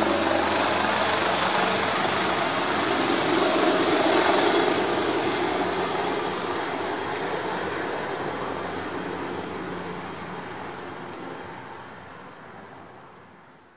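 AgustaWestland AW139 medevac helicopter flying away: steady rotor and turbine noise, loud for the first few seconds, then fading steadily as it climbs off into the distance.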